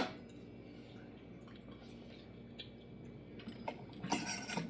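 Quiet kitchen background with a few small clicks, then a short clatter of utensils or dishes about four seconds in.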